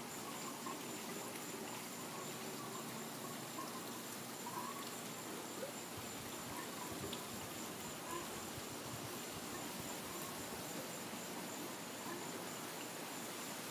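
Quiet outdoor evening ambience: a steady high-pitched insect drone with faint, scattered short chirps over a soft background hiss.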